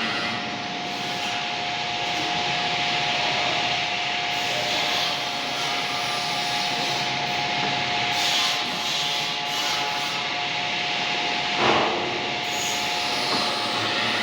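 Metal lathe running, with a steady whine under a rough, continuous hissing noise and one brief louder burst about twelve seconds in.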